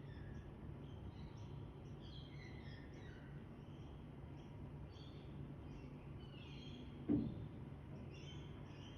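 Small birds chirping and singing over a steady low hum, with one dull thump about seven seconds in.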